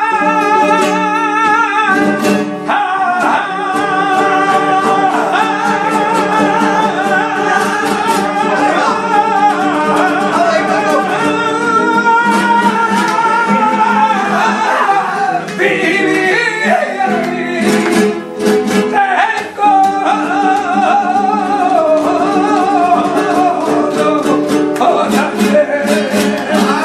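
Male flamenco singer (cantaor) singing a seguiriya in long, wavering melismatic lines, accompanied by flamenco guitar.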